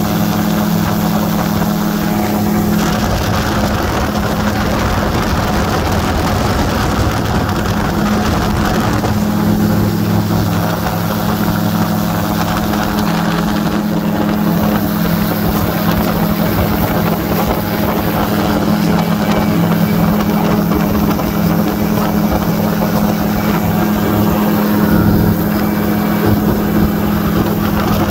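Light aircraft's engine and propeller running steadily in cruising flight, heard from on board as an even drone.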